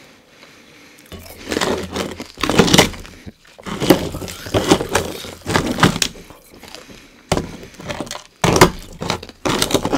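Chunks of carbonated ice knocking, cracking and scraping against each other and a wooden bowl as fingers rummage through them and lift one out. It comes as a series of sharp knocks and cracks, starting about a second in.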